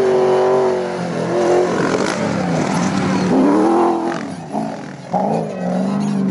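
Toyota Hilux desert rally truck's engine revving hard, its pitch dropping and climbing again several times as it drives over the dunes.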